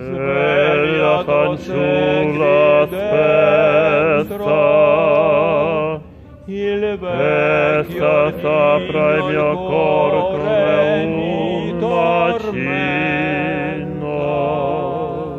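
Male voices singing in full operatic style: sustained notes with wide vibrato and a bright ring, breaking off briefly about six seconds in before going on.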